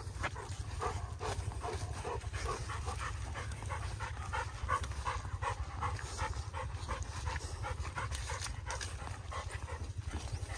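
A dog panting rapidly and evenly after running and swimming, with a steady low rumble underneath.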